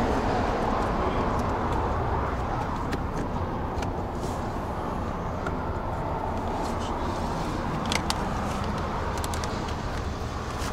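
Steady low vehicle rumble, with a few light clicks and knocks scattered through it.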